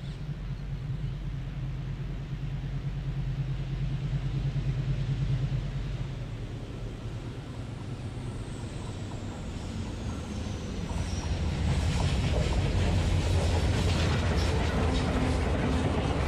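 A pair of ALCO diesel locomotives hauling a passenger train approach and pass at speed, their engines' drone getting louder about two-thirds of the way in. Over the last few seconds the coaches' wheels clatter over the rail joints.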